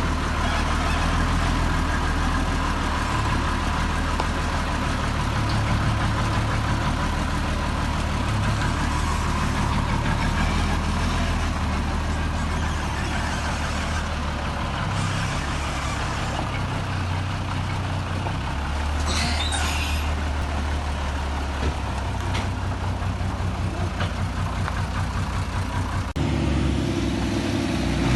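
Heavy diesel engine of earth-moving equipment running steadily, with a short hiss about two-thirds of the way through and a shift in the engine sound near the end.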